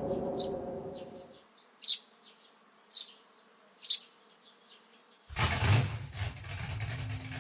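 Small FPV quadcopter's electric motors and propellers buzzing loudly, starting suddenly about five seconds in as the throttle comes up. Before that a steady tone fades out, and then there are a few short, high chirps.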